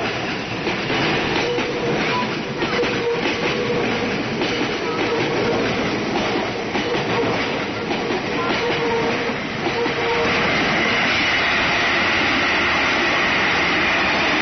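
A train passing close by, its wheels clattering rapidly for about ten seconds, then giving way to a steadier, louder hiss.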